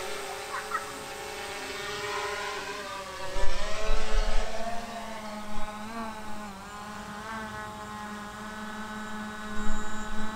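DJI Mavic Air 2 quadcopter's propellers whining steadily in flight, the pitch dipping and shifting about halfway through as the motors change speed. A brief low rumble comes a few seconds in.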